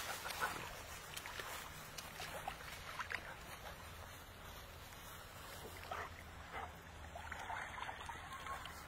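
Faint small splashes and water lapping from a Labrador paddling in a pond, with puppies rustling through the grass at the bank, over a low steady hum.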